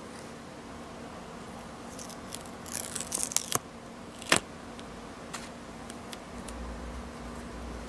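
Thin paper card being handled: a short spell of paper crackling about three seconds in, then a single sharp snap, with a few faint ticks after.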